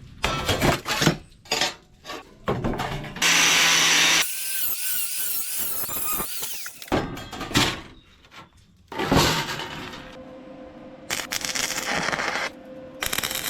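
Metalworking power-tool sounds in a run of short clips that start and stop abruptly, one after another.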